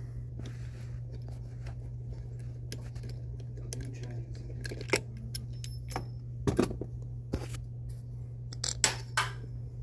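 Scattered sharp metallic clicks and clinks as the old valve stem, brass coupling and bracket are worked loose by hand, the loudest about five, six and a half, and nine seconds in. A steady low hum runs underneath.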